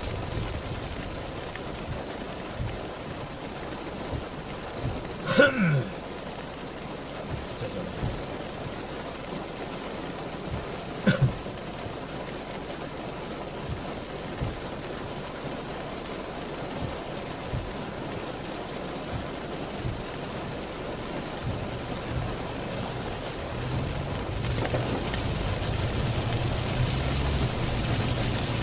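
Heavy typhoon rain falling steadily, with a low engine hum underneath and two brief louder sounds about five and eleven seconds in.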